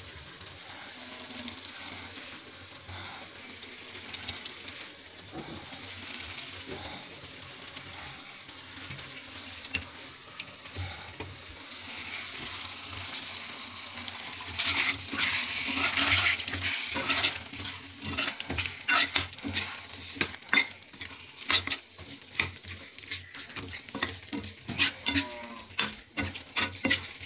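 Fish curry sizzling in a pan on a gas stove, a steady hiss that grows louder about halfway through. In the second half a metal spoon knocks and scrapes against the pan about one and a half times a second as the curry is stirred, the sizzling going on beneath.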